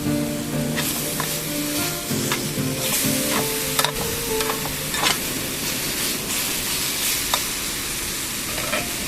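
Food sizzling and frying in a pan. Several sharp clicks of a utensil against the pan come through the sizzle.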